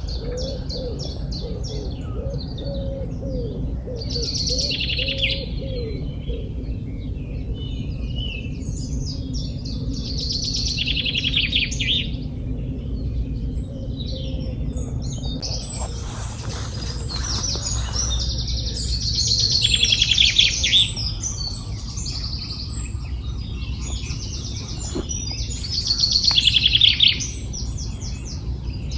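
Several songbirds singing together in a spring dawn chorus, with a louder trilled phrase repeated every five or six seconds among continuous chirping. A steady low rumble runs underneath.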